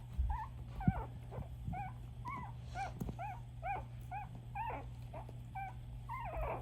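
Coton de Tulear puppies whimpering and squeaking: short, high-pitched cries that come about twice a second, over a steady low hum.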